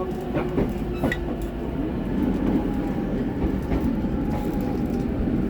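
JR Chūō–Sōbu Line electric commuter train running, heard from inside the carriage: a steady low rumble with a few sharp clicks near the start.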